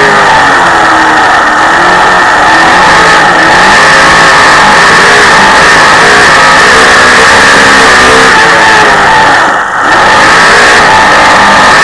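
Dirt modified race car's V8 engine at racing speed, heard from on board and very loud. The engine pitch rises and falls again and again as the car powers down the straights and lifts for the corners, with one brief dip in loudness near the end.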